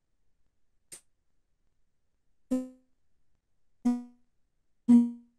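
A faint click, then three short musical notes of about the same pitch, each struck and dying away quickly, roughly a second apart, the last the loudest.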